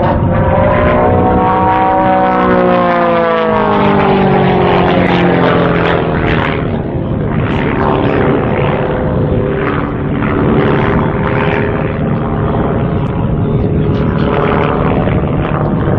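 Propeller-driven aerobatic biplane running hard through its manoeuvres. The engine note rises and then falls in pitch over the first few seconds, then keeps running with a shifting pitch.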